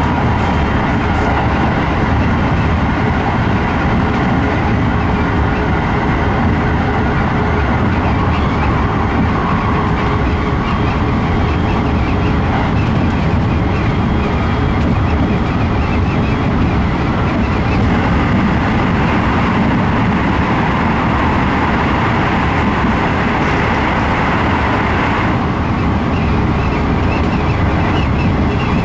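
Keikyu New 1000 series electric train running at speed, heard from inside the driver's cab: a steady, loud running noise of the train on the track.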